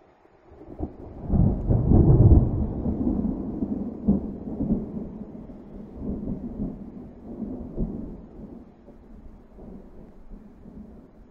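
A long roll of thunder. It swells up about a second in and is loudest around two seconds in, then rumbles on in several lesser peals and slowly dies away.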